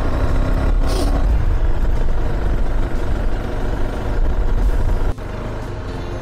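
KTM 390 Adventure's single-cylinder engine pulling up a steep climb in third gear, where the rider says it starts to knock at altitude. A steady rumble that drops abruptly in level about five seconds in.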